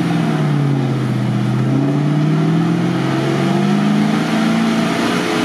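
GAZ-66 army truck's engine working hard under load as it drags through deep mud while towing a stuck SUV on a strap. Its pitch swells and sags slowly with the throttle and does not settle.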